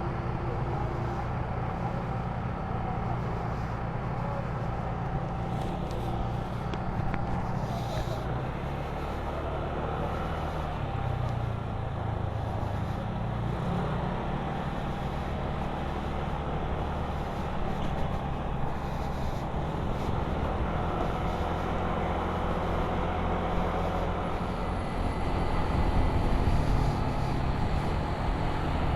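Motor scooter's engine and exhaust running under way, with road and wind noise; the engine note drops and rises again about ten seconds in as the speed changes.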